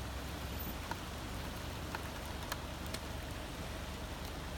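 Steady hurricane rain falling, with a few sharp ticks of drops striking close by.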